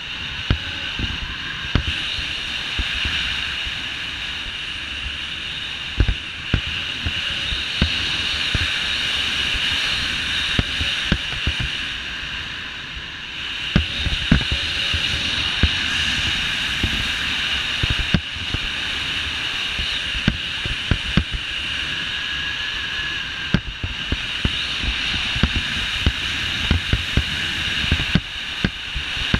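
Wind rushing over a body-mounted action camera's microphone during a fast speedflying glide, swelling and easing every few seconds, with frequent irregular low thumps of buffeting.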